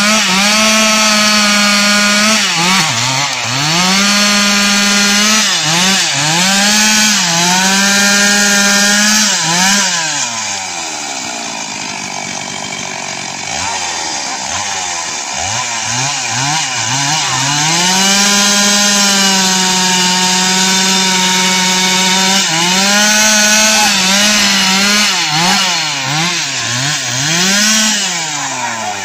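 Two-stroke chainsaw running at high revs, its pitch repeatedly sagging and recovering as it bogs under load in a cut. For several seconds in the middle it runs slower and quieter.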